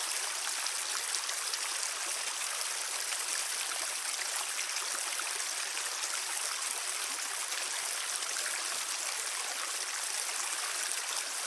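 Steady rush of shallow water flowing through a concrete drainage culvert.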